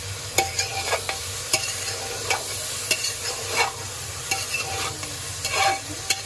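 Metal spoon stirring a moist mix of boiled chickpeas, chopped onion and tomato in an aluminium pressure cooker, scraping through the food and clinking against the pot's side again and again.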